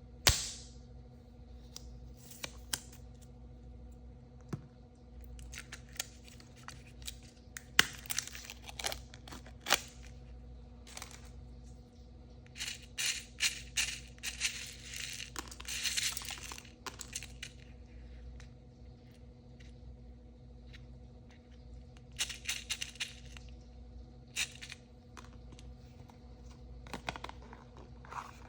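Hands opening surprise-toy packaging: plastic and foil wrappers crinkling and tearing in short bursts, with scattered sharp clicks and taps.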